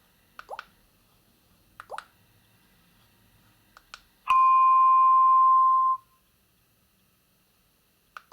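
Clicks from the CAT B26's keypad buttons being pressed, one roughly every second or so, then a steady electronic beep tone from the phone's speaker lasting just under two seconds as a ringtone or alert tone is previewed in the menu. Another key click comes near the end.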